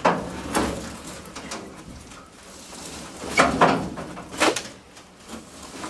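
Sheet-metal pickup box being dragged and turned by hand on the floor: a handful of sharp knocks and scrapes, one right at the start, another about half a second in, and a cluster around three and a half to four and a half seconds.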